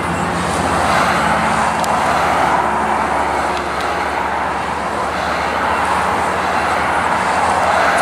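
Steady motor-vehicle noise from a pickup truck running close by.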